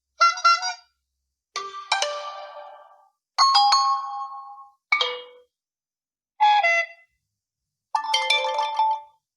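A string of short preset notification chimes from an Honor 9A smartphone, about six different tones played one after another with brief silences between them, each ringing out and fading.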